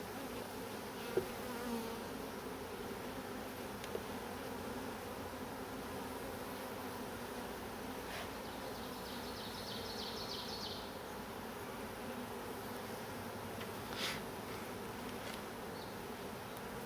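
A honeybee colony humming steadily from an opened hive, with a few faint clicks as frames are handled.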